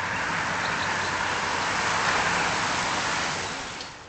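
A bunch of road racing bicycles passing at speed: a rushing whir of tyres on asphalt and spinning freewheels that swells for about two seconds, then fades away near the end.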